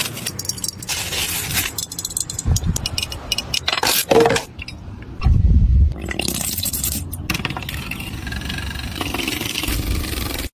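Handling noises: irregular scraping and rubbing with many small clicks and a few dull thumps, loudest about five to six seconds in.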